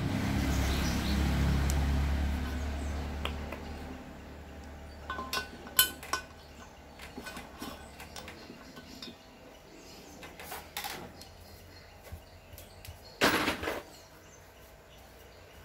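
Metal gearbox parts clinking and tapping as a gear shaft with its gears is set into a motorcycle crankcase half: scattered light clicks, the sharpest about six seconds in, and a short rustling scrape near the end. A low hum fades over the first few seconds.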